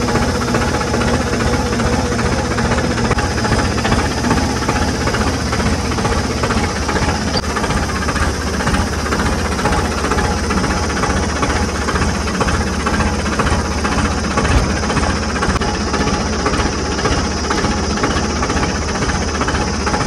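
Tractor diesel engine running steadily close up, under load from the hydraulics that tip the trolley bed and lower it again after unloading grain. A steady tone in the engine noise fades out about three seconds in.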